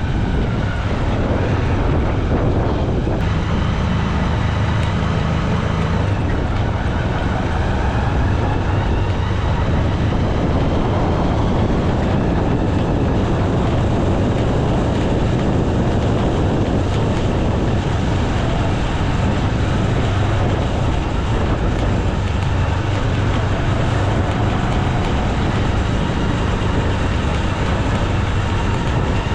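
Motorcycle engine running steadily under way, a constant low hum mixed with wind noise.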